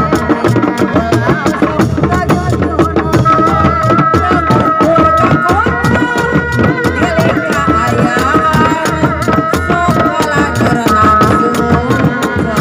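Seni Reak dogdog hand drums played in a fast, dense rhythm, with a held, wavering melody line sounding over them.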